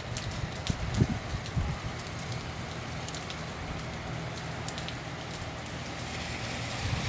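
Light rain falling steadily, a continuous hiss with scattered ticks of drops, and a few low rumbles of wind in the first couple of seconds.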